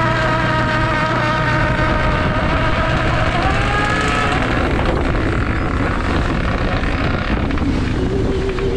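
Crab boat's hydraulic pot hauler whining as it hauls in the buoy line, the whine dipping in pitch and fading about four seconds in. Underneath is a steady low engine drone and a wash of churning water.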